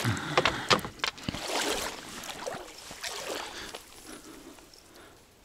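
Water splashing and sloshing in the shallows, with a few sharp knocks in the first second or so, then fading away over the last couple of seconds.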